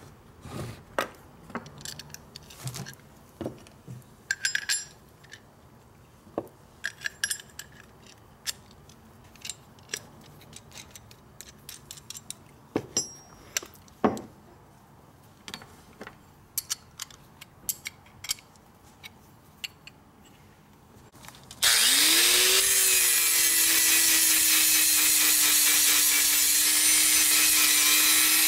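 Scattered clicks and knocks of small metal engine parts being handled. About 22 seconds in, an angle grinder spins up with a rising whine and then runs steadily, grinding on a Harley-Davidson Panhead rocker arm.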